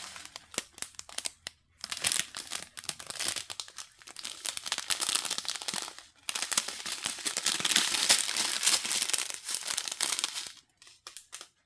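Plastic packaging crinkling as it is handled, a dense crackle with brief pauses that thins out near the end.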